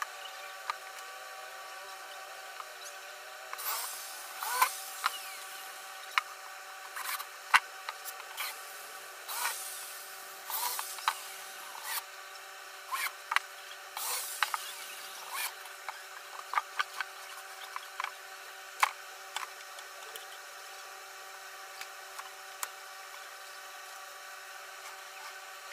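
Cordless drill driving screws into a wooden frame in short bursts, among sharp clicks and knocks of wood being handled, over a steady hum. The bursts and clicks come mostly in the first two-thirds and thin out near the end.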